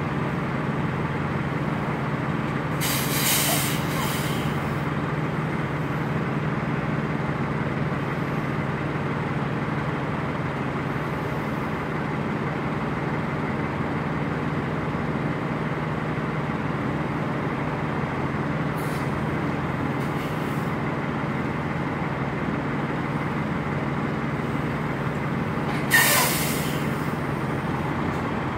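Semi-truck diesel engine running steadily at low revs, with two short air-brake hisses, one about three seconds in and a sharper one near the end.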